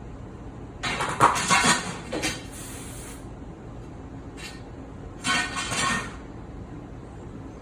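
Kitchen items clattering and banging against a metal-lined outdoor sink during washing, in two loud bursts of impacts, about a second in and again about five seconds in.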